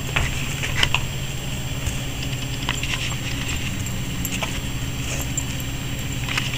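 A cocker spaniel chewing and licking a frozen dog tart in its tin: scattered small clicks and metallic clinks over a steady low hum.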